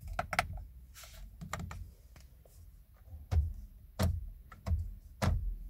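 Irregular plastic clicks and taps of fingers pressing the multifunction buttons and thumb scroll wheels on a 2019 Skoda Superb steering wheel. Several louder, duller taps come in the second half.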